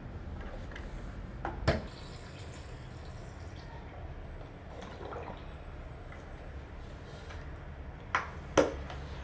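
Xiaomi Mi Robot Vacuum Mop P running in mopping mode, a steady low hum, with a pair of sharp knocks about one and a half seconds in and another pair near the end.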